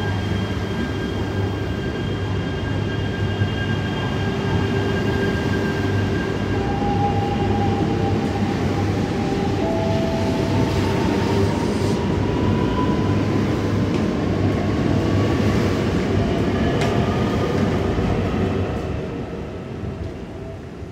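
E3 series Shinkansen trainset pulling out and gathering speed: a steady low hum with a whine that slowly rises in pitch, fading away over the last few seconds as the train leaves.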